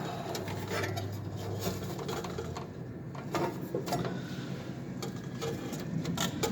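Scattered small clicks, taps and rubbing of hands working wires at the screw terminals of a fire alarm panel's circuit board, moving the wires over one at a time.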